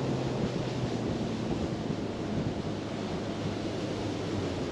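Bass boat's outboard motor running under way: a low steady engine hum under wind buffeting the microphone and water rushing along the hull.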